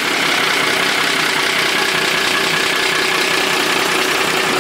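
Freshly reassembled truck diesel engine running steadily at idle.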